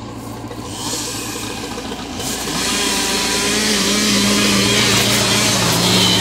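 John Deere 440-A log skidder's engine running, getting louder about two seconds in and rising in pitch for about a second before holding steady.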